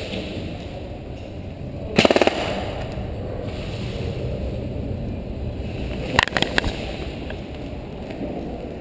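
Two short bursts of airsoft gunfire, rapid clacking shots: a quick burst about two seconds in and a few more shots about six seconds in, over a steady low rumble.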